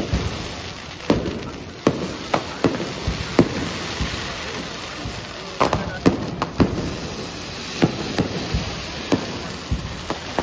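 Aerial fireworks bursting: an irregular run of sharp bangs and crackles, some in quick clusters, over a steady hiss.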